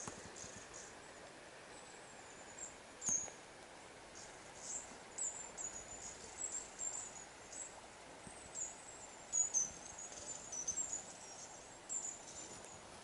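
High, thin animal chirps and squeaks, many short ones coming irregularly, over a faint steady hiss.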